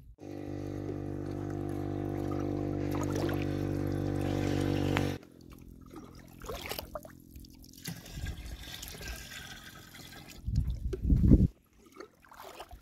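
Water poured from a small jug into a plastic jerrycan, a steady pour with a hollow tone that swells slightly and stops abruptly about five seconds in. Then a plastic jerrycan held under a pond's surface fills with soft gurgles, and a loud burst of glugging comes near the end.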